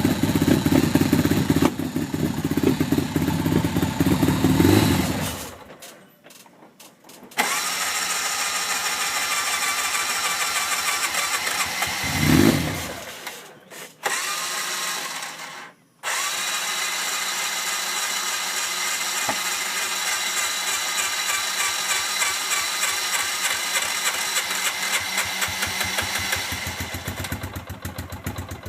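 Polaris RZR side-by-side engine running and revving, then dying away about six seconds in. It comes back as a steadier, thinner running sound with one brief rev near the middle and two sudden short dropouts, then runs steadily: a hard-starting machine struggling to stay running.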